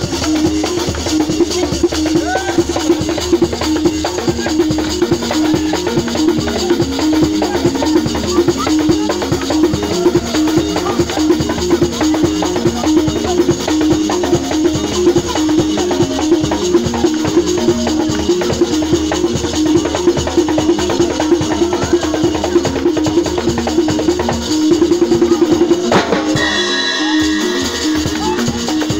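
Live African percussion music: drums beaten in a fast, steady rhythm with shaken rattles over a short repeating melodic line. The drums drop out for a moment near the end.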